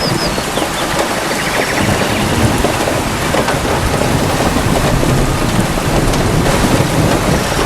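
Steady heavy rain falling on leaves and ground, with low thunder rumbling underneath. A faint rapid trill sounds briefly about a second and a half in.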